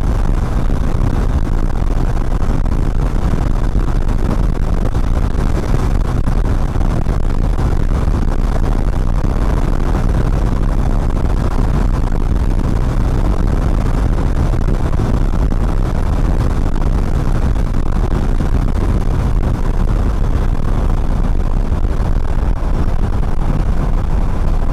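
Motorcycle being ridden along a road, heard from the rider's seat: a steady, unbroken rumble of engine, road and wind noise.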